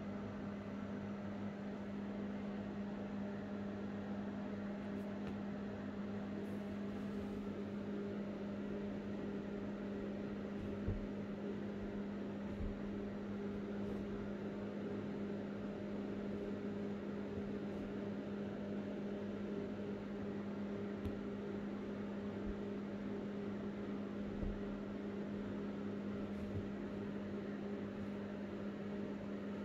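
Steady electrical hum with a low tone and hiss, as from a running appliance in the room, with a few faint short taps along the way.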